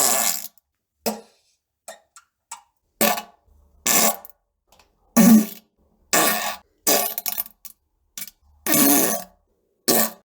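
A rapid series of farts: about a dozen separate blasts, each lasting a fraction of a second, with short silences between. The loudest comes about five seconds in and a longer one near the end.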